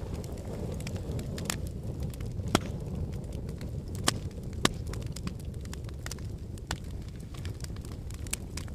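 Wood fire in a fireplace crackling over a steady low rumble of the flames, with irregular snaps and pops; the sharpest pops come about two and a half seconds in and twice more a little after four seconds.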